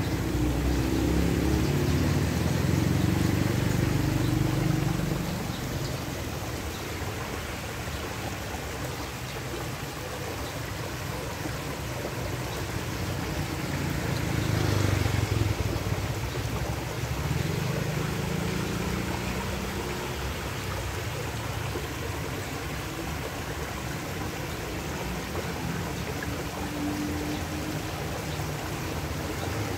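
Shallow stream water running steadily, with a low rumble that swells in the first five seconds and again around the middle.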